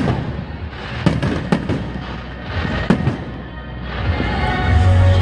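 Aerial firework shells going off: several sharp bangs in the first three seconds over continuous crackling and rumble. From about four seconds in, music with long held notes rises and becomes the loudest sound.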